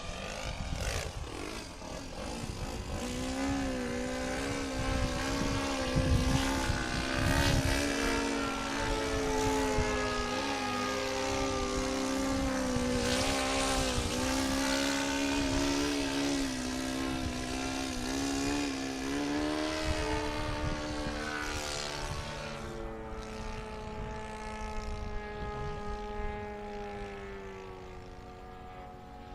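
A radio-controlled model airplane's engine and propeller running in flight. Its pitch bends up and down as the plane makes passes, and it grows fainter over the last several seconds, with wind rumbling on the microphone.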